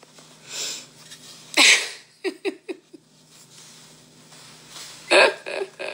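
A woman breathing out audibly through her nose and mouth, with a quick run of four short laughs a little over two seconds in, over a faint steady hum.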